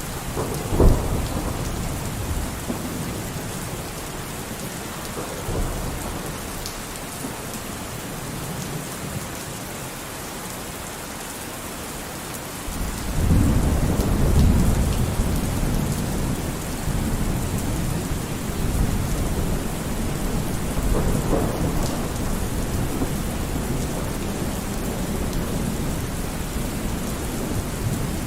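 Steady heavy rain with thunder: a sharp crack just under a second in, and a long low rolling rumble that swells at about 13 seconds and rolls on, with lesser rumbles between.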